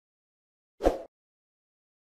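A single short sound effect, a brief burst lasting about a quarter of a second, about a second in; otherwise silence.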